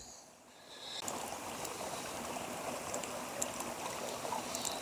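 Small wood campfire burning: a steady hiss with a few faint crackles, starting a little under a second in.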